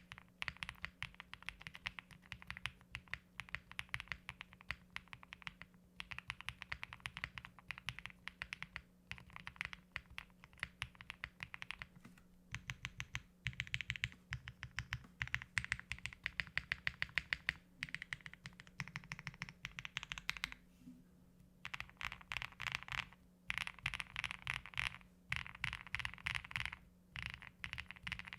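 Typing on a custom Link65 mechanical keyboard, spring-mounted with a POM plate, lubed and filmed Infinity Key Cow Milk POM switches and GMK keycaps: rapid keystrokes in bursts broken by short pauses.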